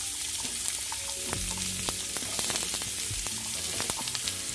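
Chopped onions frying in hot oil in a stainless-steel kadai: a steady high sizzle with scattered crackles.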